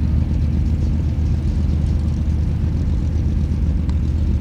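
A vehicle engine running steadily at a constant speed, a loud low drone.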